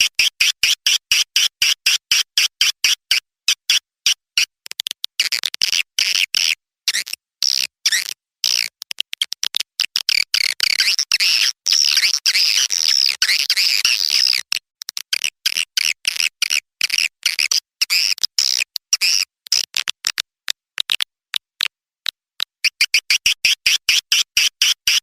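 Swiftlet call lure recording: rapid, high-pitched chittering chirps of edible-nest swiftlets, repeated in quick runs with short gaps, which swell into an unbroken twitter about halfway through. It is the kind of call played in swiftlet houses to draw the birds in to roost and nest.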